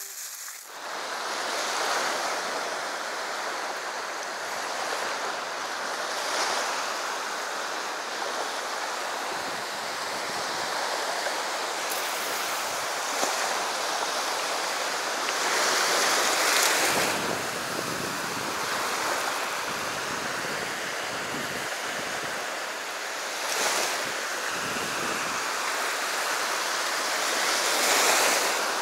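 Ocean surf: a steady wash of waves on the shore, with louder breakers several times, the biggest about halfway through and near the end.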